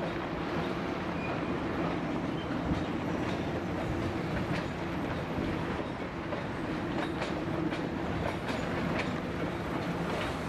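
Freight cars (tank cars and covered hoppers) rolling steadily past as they cross a steel railroad bridge, with the wheels clicking irregularly over rail joints above a continuous rumble and a steady low hum. The clicking grows more frequent from about three seconds in.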